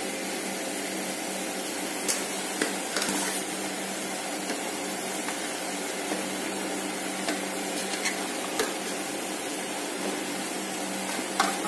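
Carrot halva mixture cooking in a pressure-cooker pot over the flame: a steady hum and faint sizzle, with a few light clinks and a short scrape of a spoon against the pot as grated coconut is tipped in.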